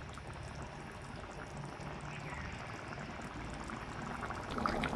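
Curry gravy bubbling at the boil in a kadai: a soft, steady bubbling.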